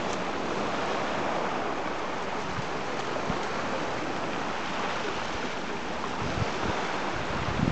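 Sea surf washing steadily on a pebble beach, an even rushing hiss. From about six seconds in, wind buffets the microphone with low rumbling thumps.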